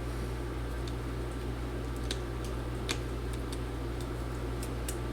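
Faint, scattered light ticks of a precision screwdriver and small screws against a laptop's metal chassis, over a steady low electrical hum.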